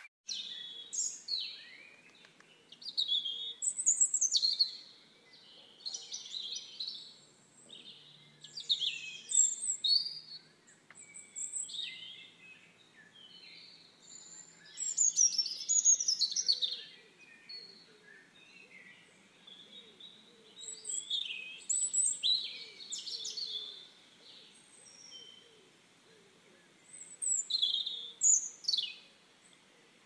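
Birds calling and chirping in short high bursts every second or two, several calls overlapping, some sliding down in pitch.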